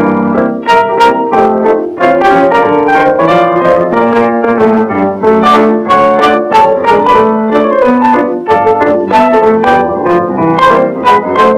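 Lively instrumental piano music, a quick run of short notes several to the second.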